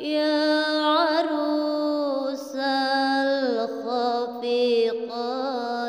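A boy's voice chanting Quran recitation in the melodic tilawah style, holding long notes with wavering ornamental turns and dropping to a lower note about three and a half seconds in.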